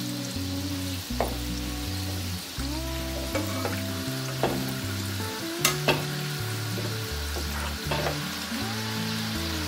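Potato dough balls deep-frying in hot oil, a steady sizzle, while a utensil stirs them and knocks against the pan several times, loudest twice near the middle. Soft background music with a slow bass line plays underneath.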